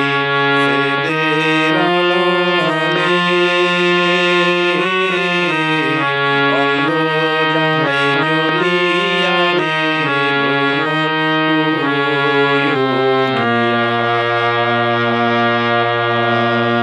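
Free-reed instrument with a harmonium-like sound playing a melody in steady held notes over a low drone, settling onto a long sustained chord about thirteen seconds in.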